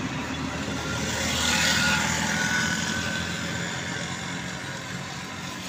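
Car engine idling steadily, with a broad rush of noise swelling and fading about one to three seconds in.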